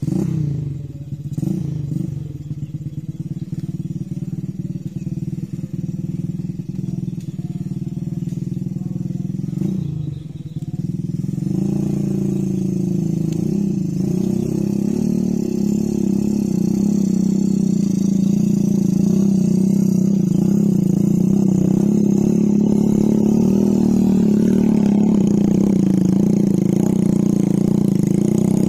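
Small motorcycle engine running under load as a cassava-hauling motorbike with loaded side panniers moves over rough field ground. It gets louder from about twelve seconds in as the bike comes closer.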